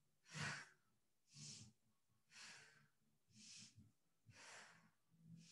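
Faint, paced breathing by a woman, alternating inhales and exhales about once a second, each breath a soft hiss, in time with cat-cow yoga movements.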